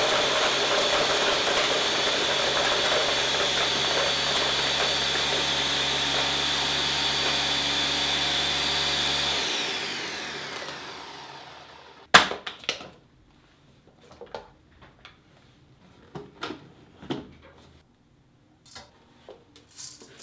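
Ninja Mega Kitchen System's 1500-watt blender crushing ice in its 72 oz pitcher on the crush setting, a loud steady motor-and-blade noise as the cubes are reduced to snow. About ten seconds in it winds down with a falling whine and stops. A sharp click and scattered knocks follow as the pitcher is unlocked and lifted off the base.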